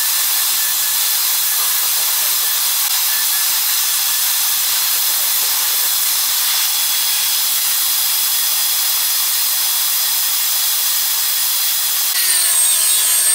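Bosch turbine (HVLP) paint sprayer running steadily: a loud, even hiss of air and atomised paint from the spray gun, with a faint steady whine underneath. About twelve seconds in, a different, slightly louder sound takes over.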